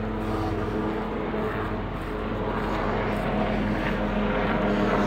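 Helicopters flying overhead: a steady engine and rotor drone that grows a little louder near the end.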